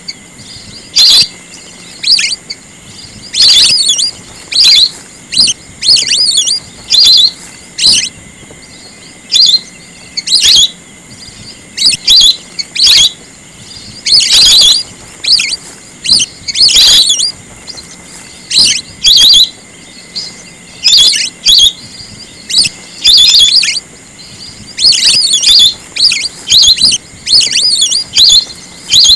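Whistling ducks (belibis) giving loud, shrill whistled calls in short bursts, about one a second: a call recording of the kind played to lure the ducks in.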